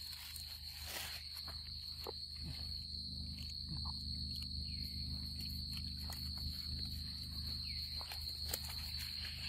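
Steady high-pitched chorus of night insects, with a low steady hum beneath it and a few faint clicks.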